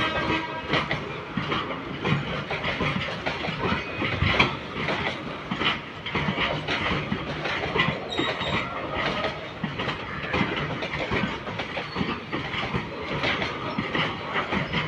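Open-top freight wagons rolling past close by, their wheels clattering over the rails in an irregular stream of clanks and knocks, with a heavier clank about four seconds in.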